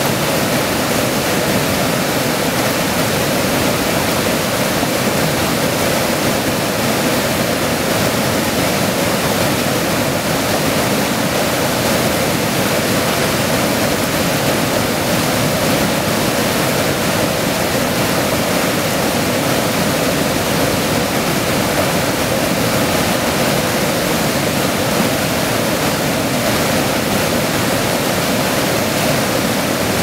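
River water pouring over a rock ledge in a low waterfall, a steady, loud rush of whitewater with no change throughout.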